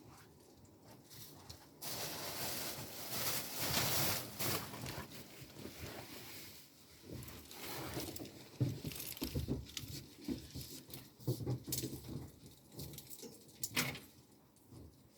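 Close, loud rustling with scattered light clicks and knocks: handling noise while laundry is hung out. A rustling spell starts about two seconds in, then rustles and clicks come at irregular intervals, with one sharp click near the end.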